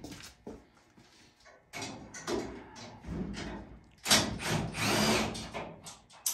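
Cordless drill running in several short bursts, the loudest near the middle, its motor whining up and back down, as fasteners are taken out of a dirt late model's body panels.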